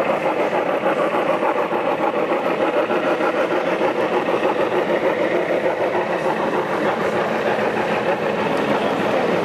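Gauge 1 model steam locomotive running past with a freight train, its sound unit chuffing in a fast, steady rhythm.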